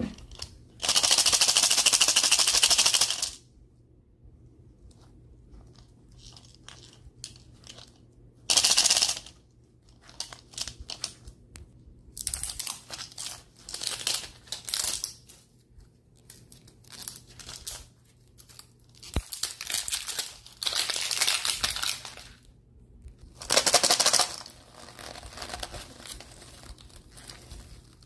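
Printed plastic wrapper being torn and peeled off a Zuru 5 Surprise capsule ball by hands in rubber gloves: loud crinkling tearing in several bursts of one to two seconds, with quieter rustling between them and a single sharp click about two-thirds of the way through.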